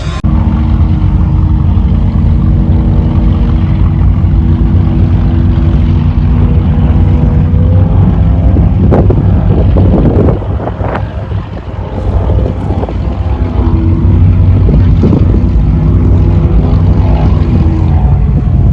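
High-performance powerboat engines running loud and steady at low speed, with a deep, even rumble. The sound drops briefly just after halfway, then comes back to full strength.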